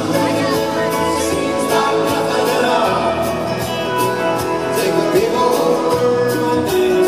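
Live band playing a country-rock song: acoustic guitars, drum kit and keyboards on a steady beat, with voices singing held notes.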